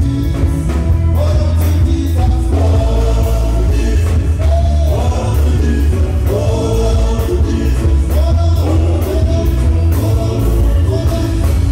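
Loud amplified music with a heavy bass and a steady beat, with a group of men singing together into microphones.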